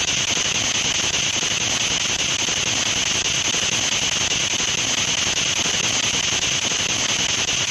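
Ghost box (spirit box) app sweeping through FM radio frequencies, giving a steady hiss of radio static.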